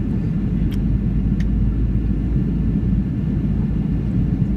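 Cabin noise of a Boeing 737-700 airliner in flight on descent: a steady low rumble of its engines and the airflow around it. Two faint ticks sound about a second in.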